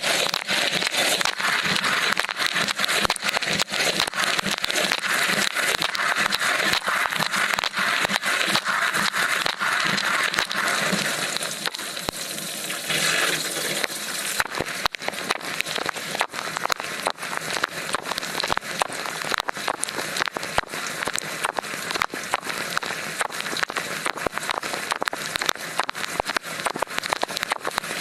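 Water sprayed by an LG dishwasher's spray arms during a wash cycle, heard from inside the tub: a dense rush of spray with a constant crackle of drops striking close by. The spray eases for a few seconds about twelve seconds in, then comes back.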